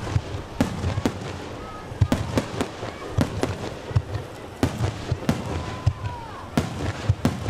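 Fireworks display: shells bursting in a rapid, irregular string of sharp bangs, several in each second.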